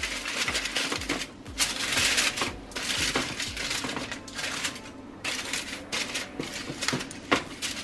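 Aluminium foil crinkling and crackling as a sheet is laid over a baking sheet and crimped down by hand, in a run of irregular rustles and sharp little crackles.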